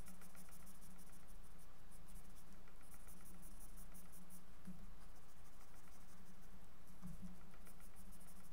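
A pencil scratching on drawing paper in rapid back-and-forth shading strokes. The strokes come in runs with short pauses, over a steady low electrical hum.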